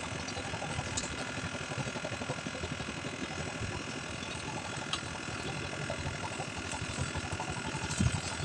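A small engine running steadily, with a fast, even chug.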